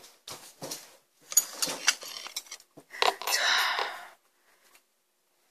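Handling of a foam cup-noodle bowl: light clicks and rustles of its paper lid as a metal fork is laid on top to hold it shut, then a rush of noise lasting about a second, about three seconds in.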